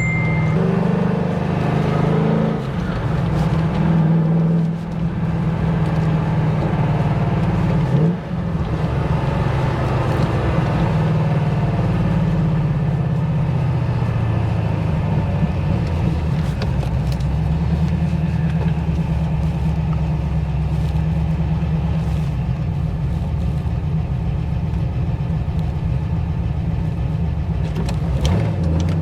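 Holden VY Commodore SS's 5.7-litre V8 engine and exhaust heard from inside the cabin while driving. The engine note holds steady, falls in pitch about halfway through, and climbs sharply near the end as it revs up.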